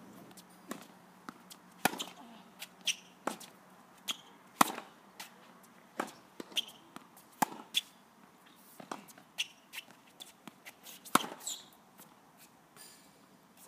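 Tennis ball being struck by rackets and bouncing on a hard court: a string of sharp pops and knocks at uneven intervals, a few seconds apart at most, the loudest about a third of the way in and near the end.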